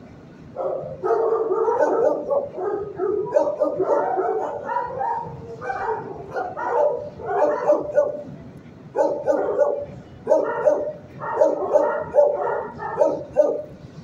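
Dogs barking in a shelter kennel, in rapid runs that start about half a second in, with short breaks between runs.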